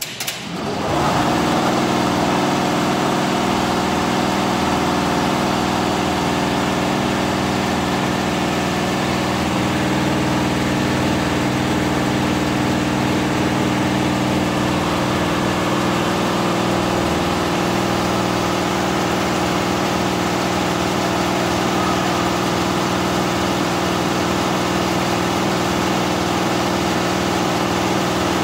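Richpeace 12-head flat embroidery machine running steadily on a test stitch-out, its needle heads stitching in a continuous mechanical drone. It comes up to full speed within the first second and then holds steady.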